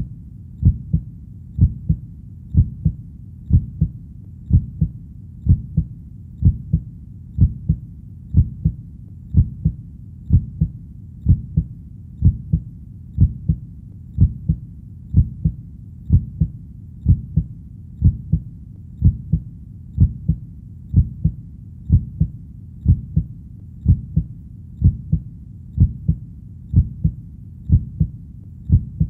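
Heartbeat sound: a steady, low lub-dub, about one beat a second, each beat a double thump.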